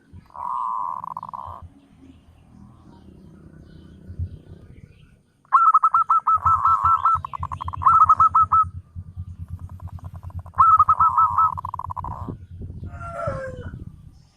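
Zebra doves (perkutut) calling: bursts of rapid, trilled cooing notes, one short burst early on and two longer bursts later, with a low rapid pulsing underneath.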